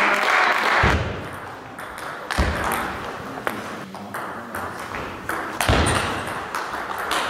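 Table tennis rally: the plastic ball clicking sharply off the bats and table in quick succession, ringing in a large sports hall, with a few dull thuds from footwork on the floor. A short rush of noise comes first.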